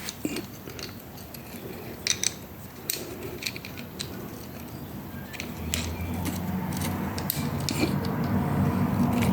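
Hand tap being wound through a nut inside a chassis, with scattered metallic clicks and ticks as it turns. A low steady hum comes in about six seconds in and grows louder.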